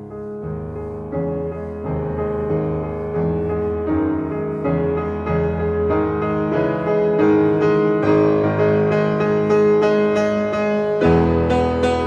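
Instrumental background music led by piano, a steady flow of notes building gradually in loudness, with a fuller chord coming in about eleven seconds in.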